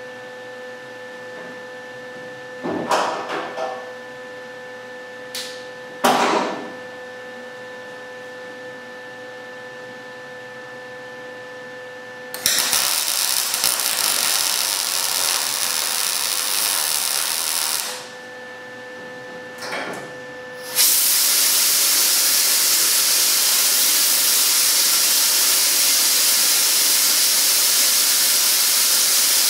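MIG welder arc welding sheet-metal body panel: a few short bursts of crackle, then a steady weld of about five seconds starting about twelve seconds in. A loud, even hiss sets in about two-thirds of the way through and keeps on.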